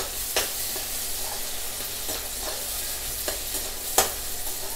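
Chopped onion, green chillies and curry leaves sizzling in hot oil in a kadai, stirred with a perforated metal spoon. The spoon scrapes and taps against the pan several times, the loudest tap about four seconds in.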